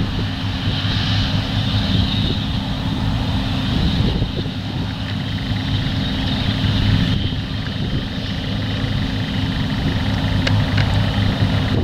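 John Deere combine harvester running steadily under load while cutting wheat: a continuous engine drone with a strong low hum and a steady hiss above it.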